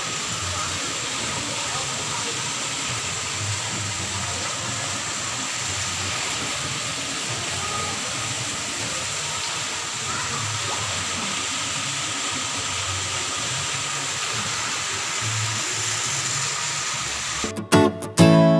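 Steady rush of water pouring into a koi pond, an even hiss-like noise with no change. Just before the end it cuts off with a few clicks and acoustic guitar music starts.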